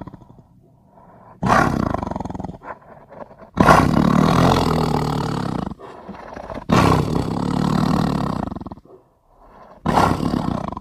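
Tiger roar sound effect: a run of big-cat roars, four of them, each starting suddenly and fading away over about two seconds, with short gaps between.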